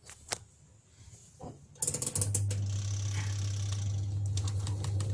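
Twin-tub washing machine's spin-dryer timer dial clicking as it is wound, then the spin motor starting about two seconds in and running with a steady low hum and no squeak, now that the spin tub is clamped tight to its shaft.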